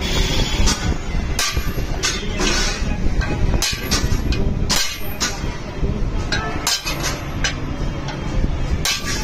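Small hand hammer striking a flat steel kassi (spade) blank on an anvil: sharp metallic blows at an uneven pace, about two a second.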